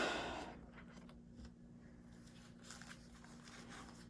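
Plastic card sleeves and top loaders being rummaged out of a supply box: a louder rustle at the start, then faint scattered rustling and small clicks of plastic being handled.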